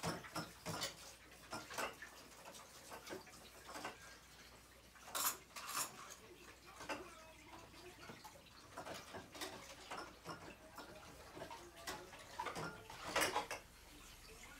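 Dishes and cutlery clinking and clattering as they are washed by hand in a kitchen sink, in irregular knocks, the loudest about five seconds in and again near the end.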